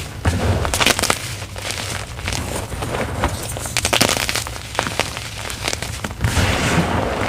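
Gym chalk block with a paint-and-glitter topping being crushed, crunching and crumbling in a dense run of small cracks and crackles.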